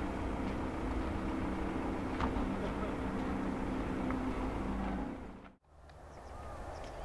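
Bell 427 helicopter's twin turbine engines and rotor running steadily, a hum with several steady tones over a low rumble. It cuts off abruptly about five and a half seconds in, leaving only a quieter background.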